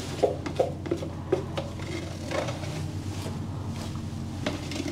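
Scraping and rustling from a small scraper working wet expanding foam along the hull: a run of short strokes that thin out after about two seconds, over a steady low hum.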